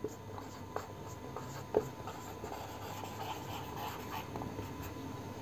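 Marker pen writing on a whiteboard: faint scratching strokes with a few small taps of the tip, the clearest a little under two seconds in.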